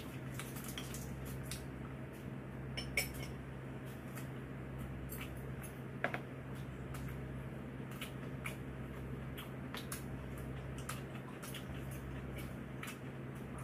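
Eating utensils clicking and clinking against dishes during a meal: scattered light clicks, with two sharper clinks about three and six seconds in, over a steady low hum.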